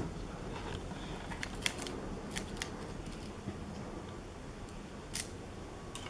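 Lock pick and tension wrench clicking and scraping against the pins inside a transparent cutaway practice padlock, as the lock is picked. The sound is a scatter of small, sharp clicks, with a slightly louder one about five seconds in.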